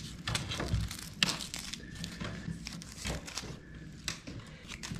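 Old newspaper, stuffed into the gap behind a floor trim, being pulled out by hand. It crinkles and tears in irregular crackles.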